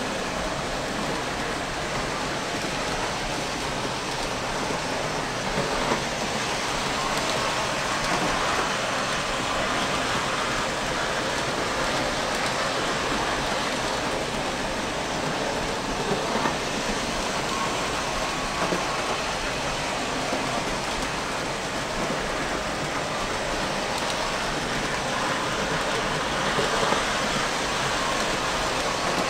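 O scale model trains running on the layout's metal track: a steady, even rolling rumble and hiss of wheels and motors.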